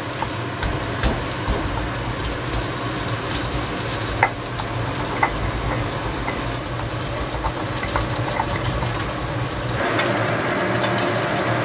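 Fish frying in oil in a pan, a steady sizzle with scattered sharp pops and clicks, over the scrape and knock of a stone pestle crushing chillies and shallots in a stone mortar. About ten seconds in the sizzle becomes brighter and a little louder.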